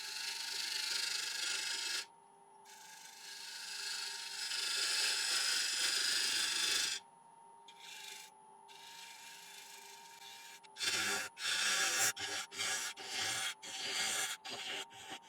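Lathe tool cutting across the face of a spinning ash bowl blank turning at about 750 RPM, facing it off. The shavings hiss off in two long passes, then in a run of short, choppy cuts near the end, over a faint steady hum from the lathe.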